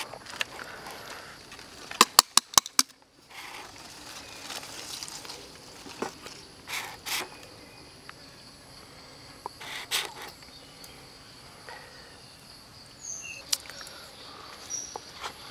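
Cooked crocodile being handled with metal tongs and a spoon: a quick run of five sharp clicks about two seconds in, then scattered short scrapes and rustles. A steady high insect drone runs underneath, with a few short high chirps near the end.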